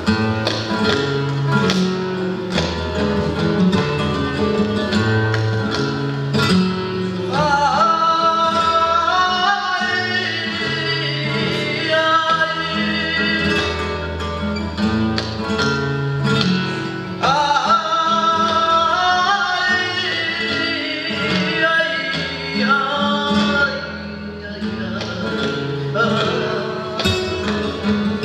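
Flamenco music: acoustic guitar playing, with a singer's voice coming in about a quarter of the way in and singing long, wavering lines over it.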